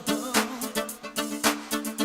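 Instrumental pop music with a steady drum beat under held synth chords, no vocals.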